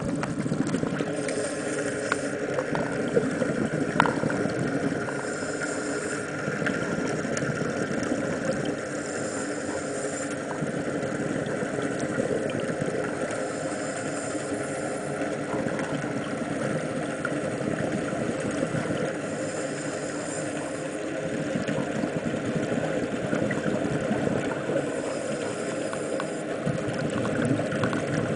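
Scuba diver breathing through a regulator, heard from an underwater camera housing: a steady low rumble of water noise, with a hiss of breath through the regulator returning about every four to five seconds.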